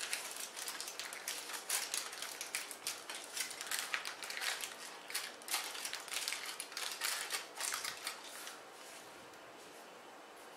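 Aluminium foil crinkling and crackling as it is peeled back off a thin sheet of raw ground-beef donair meat, many small irregular crackles that die away about eight and a half seconds in.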